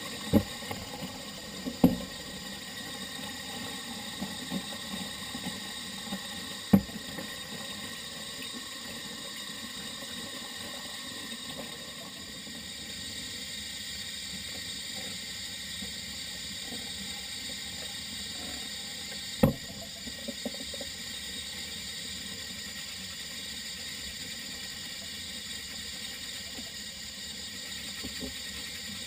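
Tap water running steadily into a utility sink as a dirt bike air filter is rinsed and scrubbed under the stream, with a few sharp knocks.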